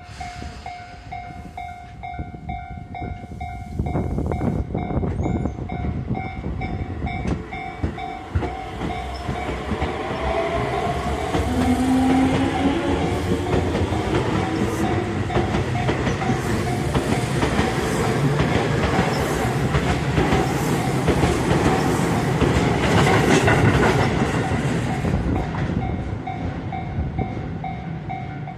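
Japanese level-crossing warning bell ringing in steady repeated dings while an electric train passes over the crossing. The train builds up about four seconds in, with wheels clattering over the rails and a rising motor whine, then fades near the end as the bell keeps ringing.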